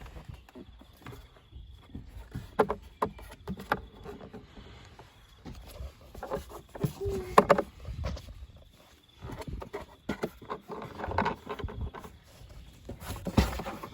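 Plastic clicks, knocks and rubbing as a 2006 Honda CR-V's glove compartment is unclipped from its snap-in catches and worked free by hand, the loudest click about seven seconds in.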